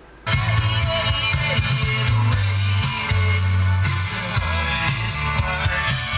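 Music from an FM station playing through the 2008 Mazda CX-7's factory stereo. It cuts in abruptly about a quarter of a second in, as the tuner lands on a new station, and plays loudly with a steady bass line.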